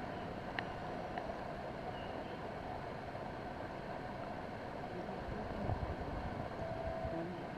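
Steady outdoor background noise, a low even rush, broken by a few faint clicks and short faint tones.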